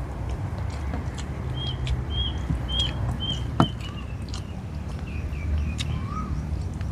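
A bird chirps repeatedly in short calls, about two a second, then gives a few lower notes later on, over steady outdoor ambience. Small clicks of eating with the fingers run through it, and there is one sharp knock about three and a half seconds in.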